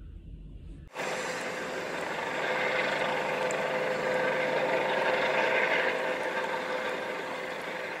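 A helicopter hovering low over water: a steady rushing noise of engine and rotors with a constant hum in it, starting abruptly about a second in. Before it there is a faint low rumble.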